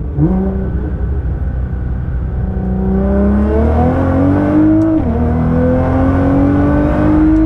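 Modified Nissan GT-R's twin-turbo V6 under hard acceleration, its engine note climbing steadily through the revs. There is a quick upshift about five seconds in, where the pitch drops, and then the note climbs again.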